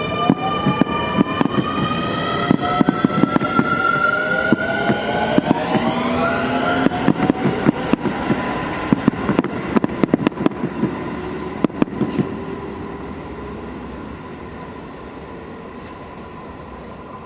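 Keio 9000-series electric train pulling away. Its inverter motors give several rising whines that climb over the first seven seconds, over fast wheel clatter across the rail joints. The clatter thins out after about twelve seconds and the train fades into the distance.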